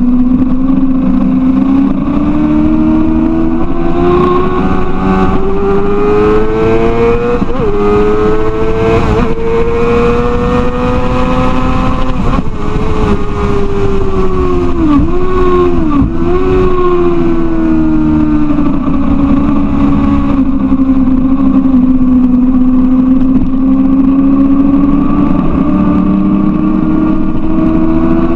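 Sport motorcycle engine running hard on a racetrack, heard from a camera mounted on the bike over wind noise. The engine note climbs slowly for about twelve seconds, dips sharply twice around the middle, then holds steady and rises a little near the end.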